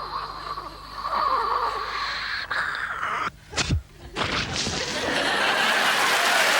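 Studio audience laughing, a short falling swoosh about halfway through, then applause building toward the end.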